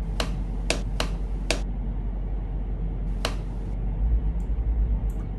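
Four sharp clicks at uneven intervals, the last one a couple of seconds after the others, over a steady low hum.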